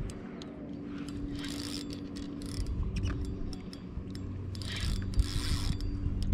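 Spinning reel being cranked to wind in line, its gears whirring in short spells, over a steady low hum.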